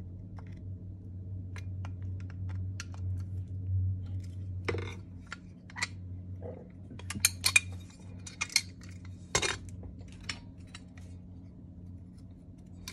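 Metal carburetor parts and a screwdriver clinking and tapping against the body of an Autolite 2100 carburetor being reassembled: scattered light clicks, with a busier run of sharper clinks and a knock about midway.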